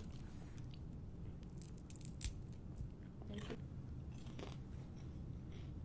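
Caramel-coated popcorn being crunched and chewed, with several short, irregular crisp crunches over a low room hum.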